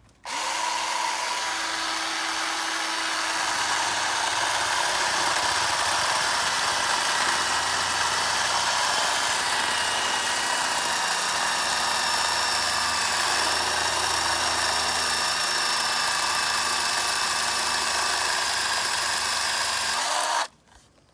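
Ryobi 18-volt brushed-motor battery chainsaw on a 1.3 Ah battery, starting abruptly and running with a steady whine, then bogging into a cut about three seconds in, with a deeper rumble under it, before stopping suddenly near the end. The saw is struggling a little on the small battery.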